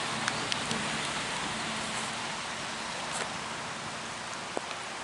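Steady rain falling, with scattered drops ticking sharply close to the microphone.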